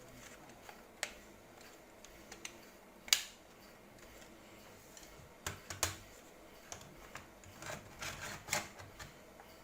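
Scattered sharp clicks and taps of small hard plastic and metal parts being handled on a laptop during a hard-drive swap. The sharpest knock comes about three seconds in, with quicker bunches of clicks around five and a half and eight seconds.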